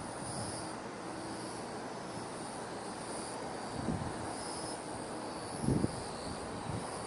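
Steady outdoor rushing noise with faint high-pitched pulses repeating through it. Two soft low thumps come about four and six seconds in.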